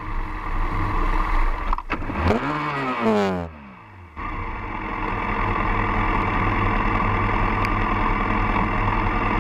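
Motorcycle engine running while riding, with road and wind noise. The engine pitch swings up and down two to three seconds in and the sound drops briefly about four seconds in. After that it runs steady at speed.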